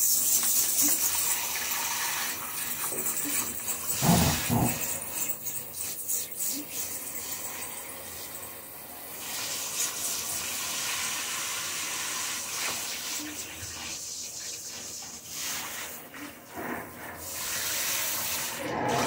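Water running from a tap and splashing as feet are rinsed under it, the hiss easing after the first few seconds, with a brief thump about four seconds in.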